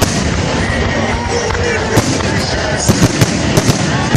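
Fireworks display: sharp bangs of shells bursting overhead, single ones at first and then a quick run of several about three seconds in, over a steady background din.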